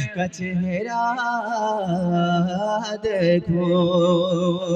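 Man singing a naat (Urdu devotional poem) into a microphone, holding long notes that waver up and down in ornamented runs, with no words clearly sung.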